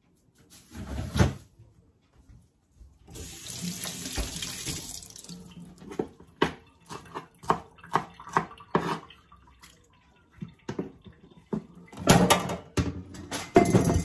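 Water running from a kitchen tap into a sink in short spells, the longest lasting about two seconds, followed by a run of quick knocks and clatter as things are handled at the sink, and a louder burst of water and clatter near the end.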